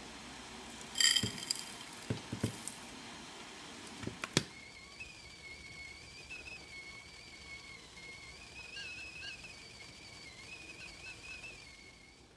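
A few knocks and a short ringing clink, then a stovetop kettle starts whistling about five seconds in: a steady high whistle that wavers slightly as the water comes to the boil.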